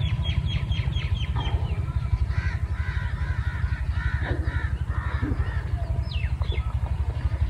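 Birds calling: a quick run of about eight short falling notes, then a series of harsher arching calls, and two more falling notes near the end, over a steady low throb.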